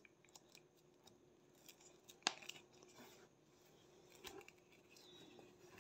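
Faint rustling and small clicks of a synthetic three-strand rope as a strand is pushed and pulled through the lay of a splice, with one sharper click a little over two seconds in.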